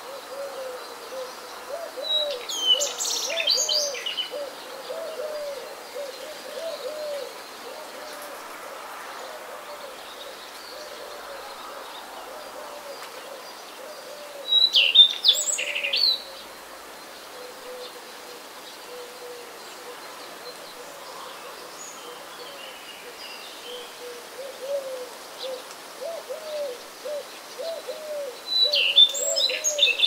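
Birdsong: a songbird sings a short high phrase three times, roughly every thirteen seconds, loudest in the middle. Under it, a low hooting call repeats a few times a second in long runs at the start and again near the end.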